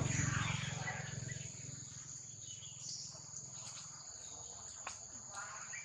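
Steady high-pitched drone of insects, with a low hum that fades out about four seconds in.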